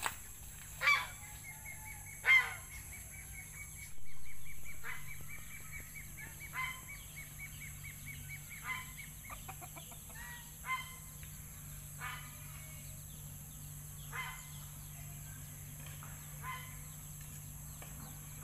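Farmyard poultry giving short, repeated calls about every one to two seconds, the two loudest about one and two seconds in.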